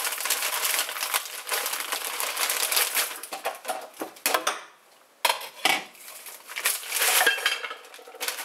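A plastic bag of frozen chicken breasts crinkling as it is ripped open and handled, then frozen breasts dropping into a crock pot with several sharp knocks. More bag crinkling near the end.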